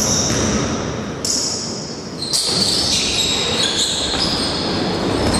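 Basketball game in an echoing gym: a ball bouncing with sharp knocks, and sneakers squeaking on the wooden floor as players move for the rebound.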